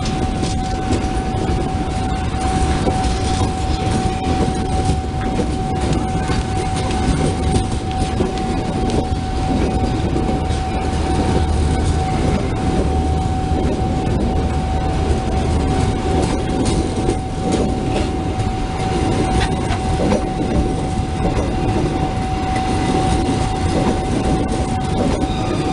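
Passenger train coaches rolling slowly past, a steady low rumble dotted with many clacks of the wheels. A steady high whine sounds throughout.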